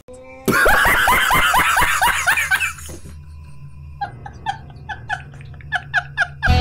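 A man laughing hard in quick, loud, repeated bursts. After about three seconds the laugh turns thinner and higher, in about four short pulses a second.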